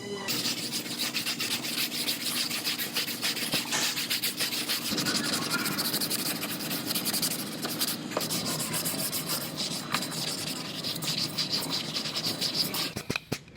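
Sanding on a car body panel: a steady, scratchy abrasive rubbing that eases off shortly before the end.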